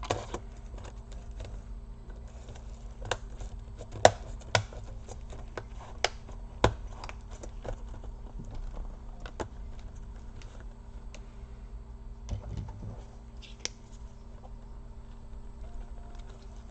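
Acer Aspire 5738 laptop keyboard being fitted back into its chassis: scattered plastic clicks and taps, the loudest about four seconds in, over a steady low hum.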